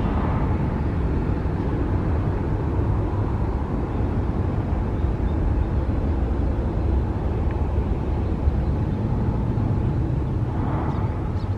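Jet airliner engine noise: a steady low rumble with a faint, constant whine above it.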